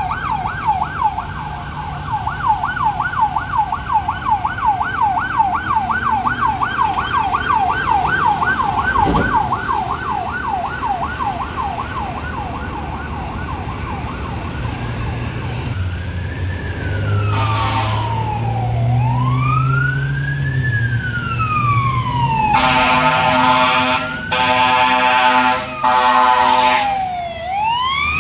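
Fire apparatus sirens on an emergency response: a fast electronic yelp for about the first fifteen seconds, then a slow rising and falling wail. Near the end come three long air-horn blasts, and the fire engine's diesel engine hums underneath as it draws close.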